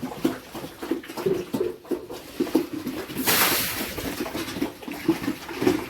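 Pigs grunting in short, repeated low grunts, with a brief burst of rushing water noise about three seconds in.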